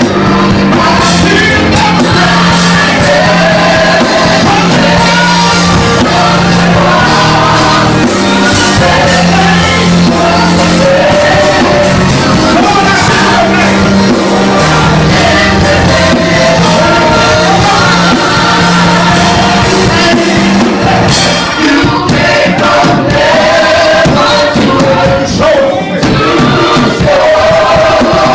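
Loud live gospel music: voices singing over instrumental backing with a steady low bass note, which drops out about three quarters of the way through while the singing goes on.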